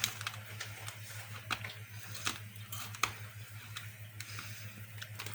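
Irregular crisp crunches of someone chewing hard, crunchy pork scratchings, a few sharper cracks among them, over a steady low hum.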